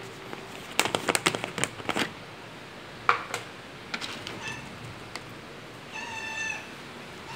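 A string of sharp clicks and knocks, densest in the first two seconds, then a cat meows once, briefly and on a steady pitch, about six seconds in.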